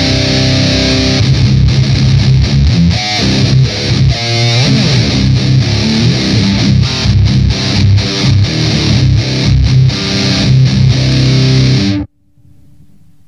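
Electric guitar played through an Electro-Harmonix Nano Metal Muff distortion pedal into a speaker-cabinet simulator, giving a heavy metal distortion tone. A held chord opens into fast palm-muted chugging and riffs. About twelve seconds in the sound cuts off suddenly.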